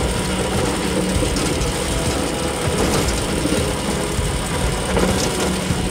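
Mine-cart sound effect: a cart rolling along rails with a steady low rumble and a light rattle.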